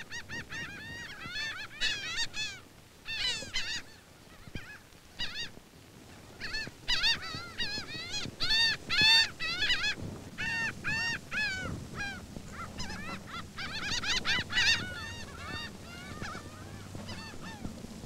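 Laughing gulls calling: bouts of short, arched calls repeated several times a second, with brief quieter gaps between the bouts.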